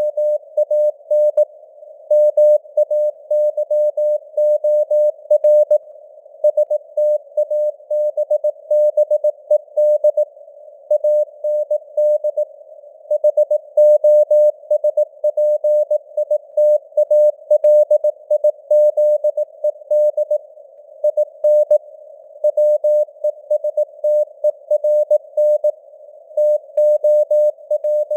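Morse code (CW) at 18 words per minute: a single steady tone keyed on and off in dots and dashes, with short gaps between words, inside a narrow hiss of simulated radio band noise.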